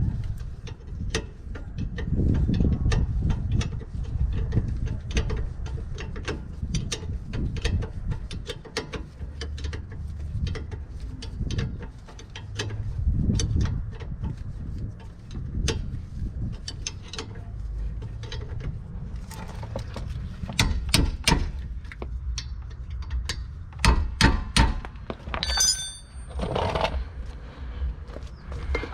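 Tools and parts being handled on a car brake job: irregular metallic clicks and knocks over a low rumble, with a cluster of louder knocks a little past two-thirds of the way through.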